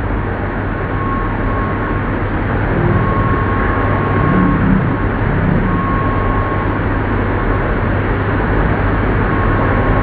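Old metal-working lathe running: a steady mechanical drone over a constant low hum, with a high whine that comes and goes in short stretches every couple of seconds.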